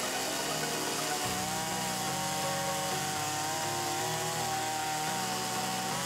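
Chainsaw engine running at a steady, slightly wavering pitch while cutting deadwood logs.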